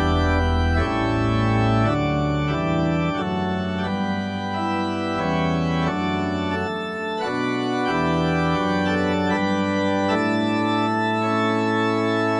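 Ahlborn Hymnus 350 electronic church organ playing sustained chords that change about every second, over low bass notes.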